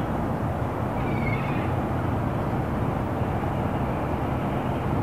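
Steady low rumble of road traffic from a nearby main road across a harbour, with a single short seabird call about a second in.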